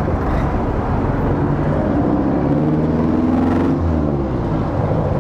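Engine and wind rush of a motor scooter being ridden along a road, with an engine note rising in pitch from about two seconds in and easing off near four seconds.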